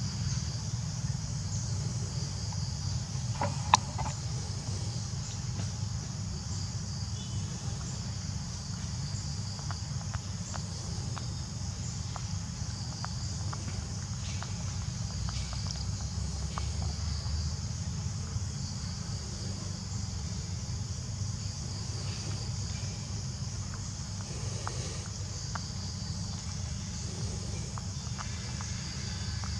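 Steady high buzzing of insects over a constant low rumble, with a sharp click about four seconds in and scattered faint ticks.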